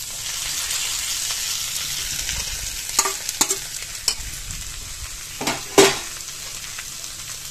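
Kabuli chana and potatoes frying in a kadhai, the sizzle growing louder just after the start as fried masala paste goes in. A steel spatula scrapes and clinks against the pan several times in the second half, loudest about six seconds in.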